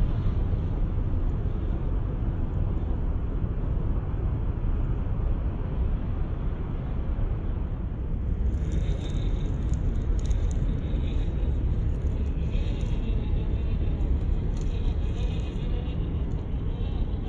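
WPL Toyota FJ40 RC crawler truck driving over rocky ground: a steady low rumble, with irregular crackling and crunching from about halfway through.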